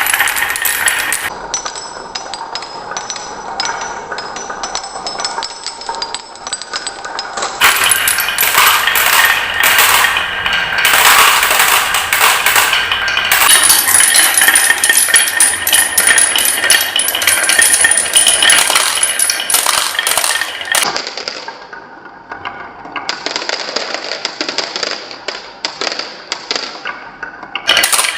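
Marbles rolling and clacking down a marble run's tracks in a dense stream of rapid clicks and rattles. The sound changes abruptly several times, busiest in the middle and thinner near the end.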